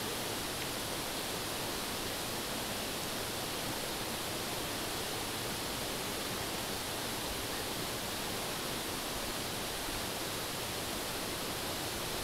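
River water rushing over rocks in a steady, even hiss with no breaks.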